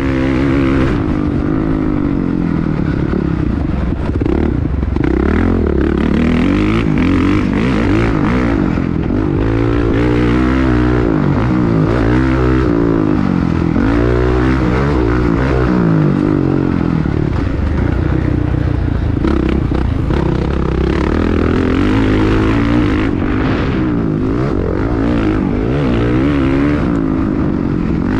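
Dirt bike engine on a motocross track revving up and dropping back again and again, its pitch climbing and falling every second or two, over a steady rushing noise.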